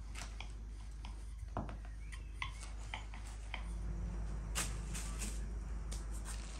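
Hands handling floured dough and a plastic sheet: scattered light clicks and soft crinkles, with a sharper burst of plastic crinkling about four and a half seconds in as a thin sheet of baklava dough is laid onto the plastic. A steady low hum runs underneath.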